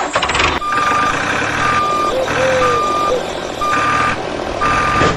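Vehicle reversing alarm beeping five times, about once a second, each beep one steady high tone, over a steady engine-like noise.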